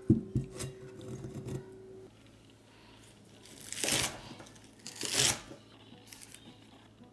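Cockle shells clattering in a mesh strainer, with a sharp knock and a few smaller clicks. Then a kitchen knife slices twice through a bunch of minari (water dropwort) stems on a wooden cutting board, each cut a crisp crunch.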